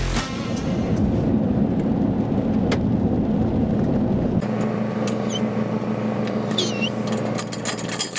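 Vehicle driving on a gravel road: steady engine and road noise that shifts in character about four and a half seconds in.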